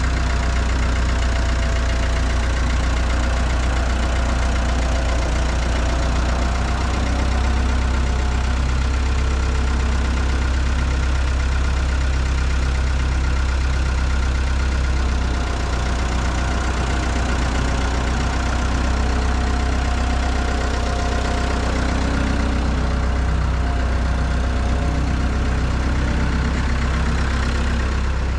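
Bobcat skid-steer loader's engine running steadily while the machine carries a stack of lumber on its forks.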